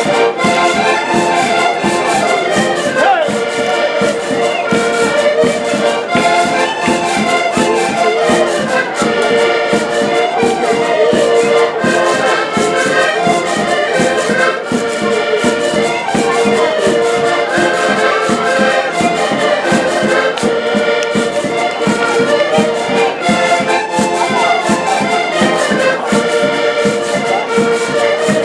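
Several diatonic button accordions playing a lively traditional tune together, with a drum beating time underneath.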